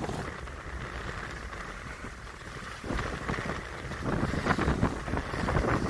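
Wind buffeting the microphone over water rushing and splashing along the hull of a sailboat under sail, growing louder and gustier about three seconds in.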